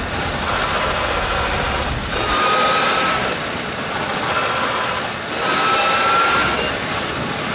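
BYD Tang's hybrid dual-clutch transmission whining while the car drives, a thin whine that rises slightly in pitch and comes and goes several times as the throttle is lifted and applied, over steady road noise. The whine is the sign of a failed bearing and a worn gear inside the gearbox.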